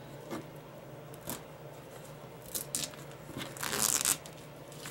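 Clear plastic-film embroidery topper being torn and peeled away from the stitched design in the hoop: a few small crackles, then a longer, louder tearing rustle near the end.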